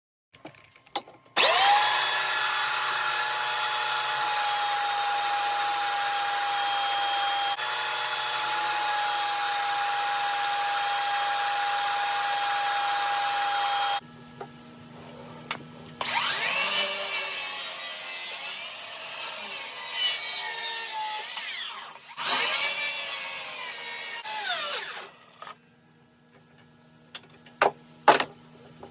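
An electric power tool's motor running with a steady high whine for about twelve seconds. It is followed by two shorter runs of several seconds each whose pitch sways up and down, and a few short clicks near the end.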